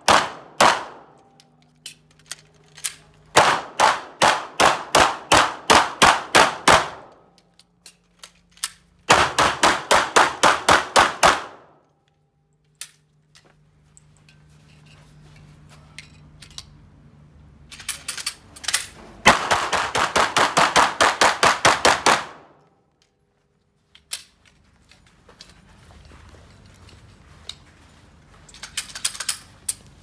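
Handgun fired in rapid strings of shots, about three to four a second, with pauses between: a couple of shots at the start, then strings of roughly a dozen, nine and fifteen shots, and a fainter quick cluster near the end.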